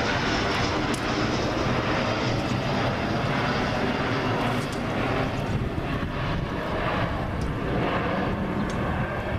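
A large engine running steadily at an even pitch, a continuous mechanical drone.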